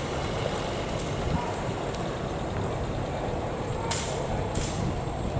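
Barge engine running steadily with a low rumble; two short hisses sound close together about four seconds in.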